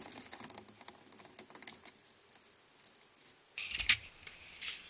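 Plastic interior door-handle trim on a Ford F-150 door being worked loose by hand: a quick run of small clicks and rattles, then scattered ticks. A louder rustling knock comes near the end.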